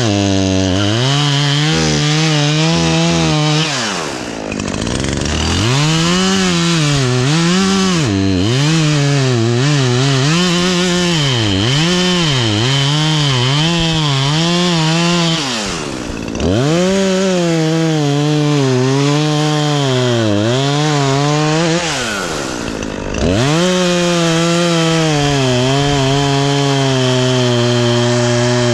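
Chainsaw engine at high revs, limbing and bucking a felled treetop, its pitch wavering as it sags under load in the wood and picks up again. Three times, about 4, 16 and 22 seconds in, the throttle is let off and the pitch drops sharply before it revs back up.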